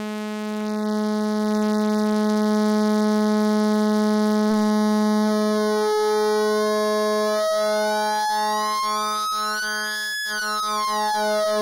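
Noise Engineering Virt Iter Legio oscillator in its SawX super-saw mode, holding one steady low note with a bright, buzzy stack of overtones. About halfway through, as the knobs are turned, the overtones start to pulse and shimmer. Near the end a sweep rises and falls through the upper overtones.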